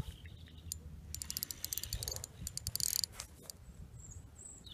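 Fishing reel on a feeder rod clicking in a quick run of sharp ticks for about two seconds, from about a second in, as a hooked fish is played.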